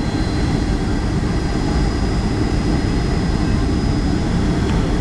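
Steady roar of a Boeing 757-200's jet engines and airflow heard inside the passenger cabin as the airliner descends on approach, with a thin high whine running through it.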